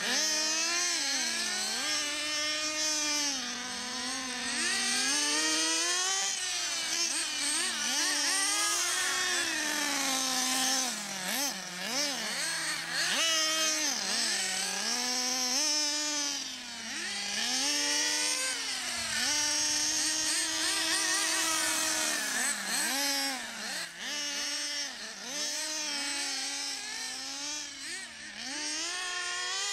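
Small two-stroke nitro glow engines of two radio-controlled cars, one a Thunder Tiger, revving up and down as they race. The high-pitched whine keeps rising and falling every second or two, with two engines at times overlapping at different pitches.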